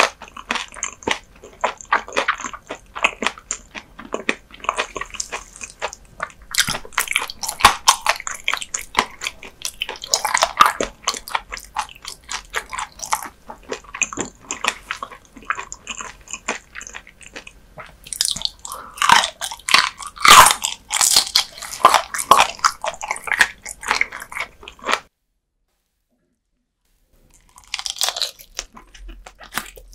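Close-miked crunching and chewing of whole raw dotted gizzard shad sashimi, eaten with its bones in: dense, irregular crisp bites and chews. The sound breaks off completely for about two seconds near the end, then the crunching resumes.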